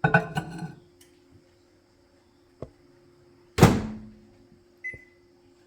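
Microwave oven being loaded and started. A clatter at the start, the door shut with a loud thunk about three and a half seconds in, then a single short keypad beep.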